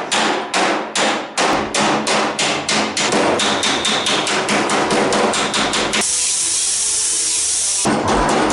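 Hammer striking the sheet-steel fender in quick, repeated blows that speed up to about four or five a second. About six seconds in, a steady high hiss takes over for about two seconds.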